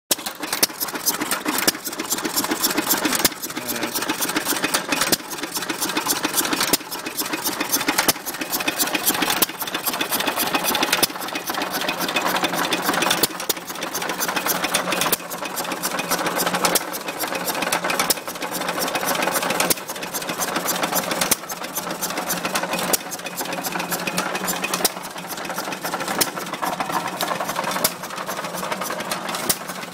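Amanco hit-and-miss stationary engine running while belted to a wood saw bench: a firing stroke about every one and a half to two seconds, slightly irregular, over a fast, even mechanical clatter.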